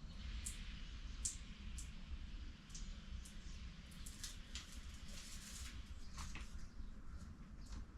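Faint scattered clicks and light rustling of hands at work, fitting sheet-metal plates with double-sided tape into the insets of a wooden refrigerator door, over a low steady hum.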